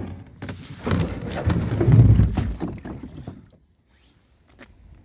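A kayak hull and paddle being handled at the water's edge: uneven hollow knocks, scrapes and rustling that stop about three and a half seconds in, followed by a few faint clicks.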